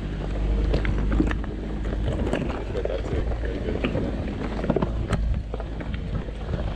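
Four-wheel drive vehicle's engine running low and steady while the tyres crunch over a rocky track, with many irregular knocks and clicks.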